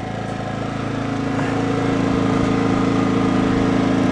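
Sportsman 2200W dual-fuel inverter generator running with no load, in economy mode, a steady engine drone that grows gradually louder.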